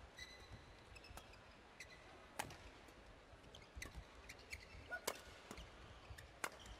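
Faint, sharp clicks of rackets striking a shuttlecock in a doubles rally, a few strikes spread a second or more apart, the loudest near the middle and toward the end. Brief high squeaks of court shoes come in between.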